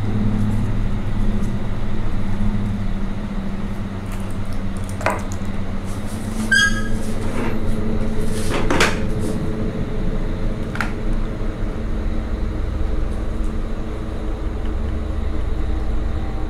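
Dark, low droning film-score sound design, a steady hum that holds throughout, with a few sharp clicks and a brief metallic ringing sweep around the middle.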